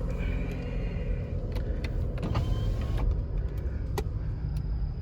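Car driving, heard from inside the cabin: a steady low engine and road rumble with a few sharp clicks.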